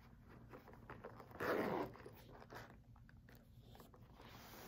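Hands handling a small quilted leather flap bag: faint small taps and rubbing, with one brief crinkle of the paper stuffing inside it about a second and a half in.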